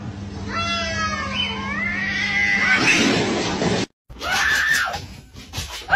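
Cats caterwauling in a standoff: long, wavering yowls that rise and bend in pitch, breaking off suddenly, then shorter yowling cries after a brief gap.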